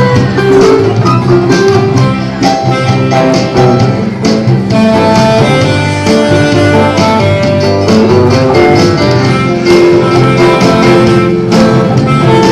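Live band playing an instrumental passage with no singing: a steady beat under a sustained melody line.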